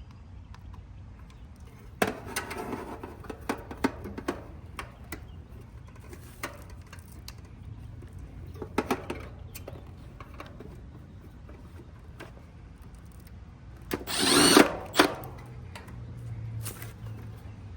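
Clicks and rattles of metal parts being handled while a capacitor is fitted in an AC condenser, then a loud burst of about a second from a cordless power drill driving a screw.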